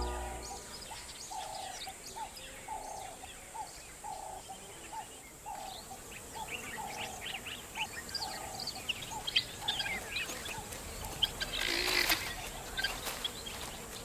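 Birds calling in the bush: a steady run of low, repeated calls about one and a half times a second, over many short high chirps and tweets. A brief louder noisy rustle comes about twelve seconds in.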